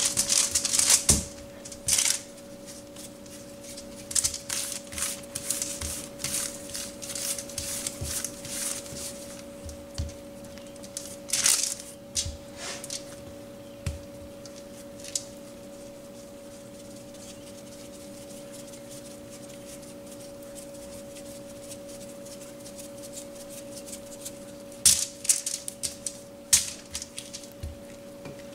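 Aluminium foil crinkling and crackling under hands pressing and flattening dough, in bunches of short crisp rustles with a quiet spell in the middle and more near the end. A steady low hum runs underneath.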